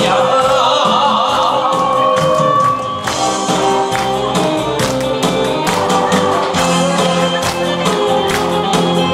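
Pop-style backing track with a steady drum beat and held melody notes.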